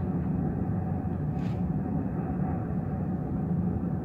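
A steady low rumble with no distinct knocks or other events.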